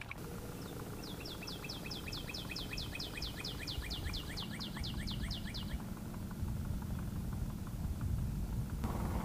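A bird calling in a fast trill of short falling chirps, about six a second, lasting around five seconds and stopping a little after the middle, over a steady low background rumble.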